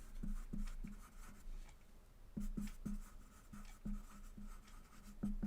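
Pen writing on a surface in a series of short, irregular strokes and taps.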